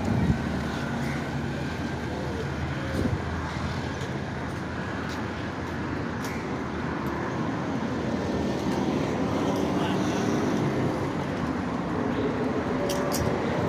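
Outdoor street ambience: a steady hum of road traffic with engines of vehicles passing on a city road.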